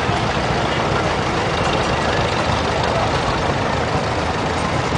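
Vintage farm tractors driving past one after another, their engines running steadily with a fast low pulsing.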